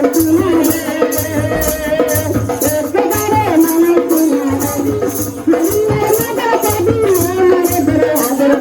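Background music: a melody over a rhythmic shaker-like percussion and a steady beat.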